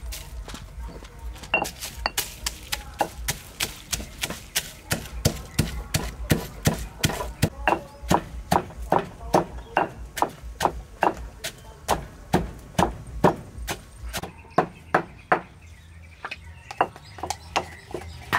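Stone pestle pounding garlic and black peppercorns in a stone mortar: steady strikes about three a second, turning sparser and lighter near the end.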